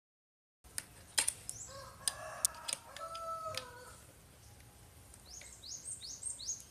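A few sharp metallic clicks and taps from hands and a tool working on a chainsaw's recoil starter. A rooster crows in the background about two seconds in, and a small bird gives a run of quick, falling chirps near the end.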